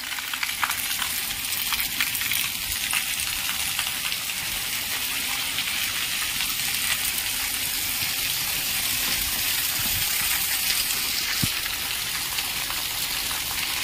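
Heavy rain falling steadily on a paved lane and rooftops, a dense, even hiss. Water streams off the roof edge close by and splashes onto the ground.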